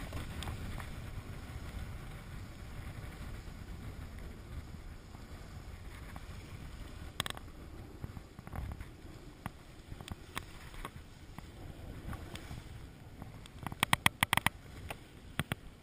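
Sailboat under sail: water rushing along the heeled hull and wind rumbling on the microphone, with a quick run of sharp clicks near the end.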